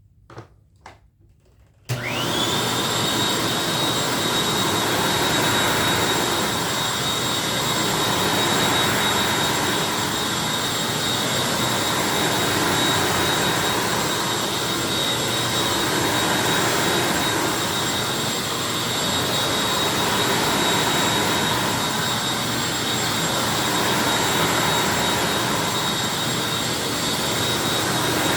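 Two short clicks, then a Hoover WindTunnel upright vacuum cleaner is switched on about two seconds in. Its motor spins up with a quickly rising whine that settles into a steady high-pitched tone over a loud rush of air, and it runs steadily from then on.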